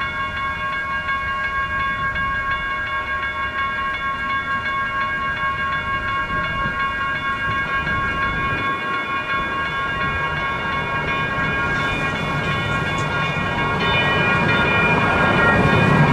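Railroad crossing bells ringing continuously, with several bell tones sounding together. The rumble of an approaching light rail train builds and grows louder over the last few seconds.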